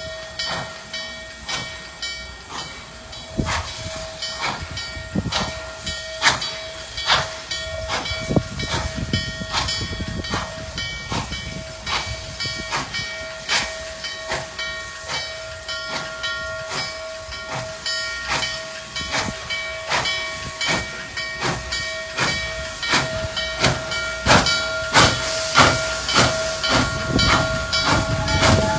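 Norfolk & Western J-class 4-8-4 steam locomotive 611 approaching, its exhaust chuffs and steam hiss growing louder as it nears, over a steady whine that holds one pitch throughout.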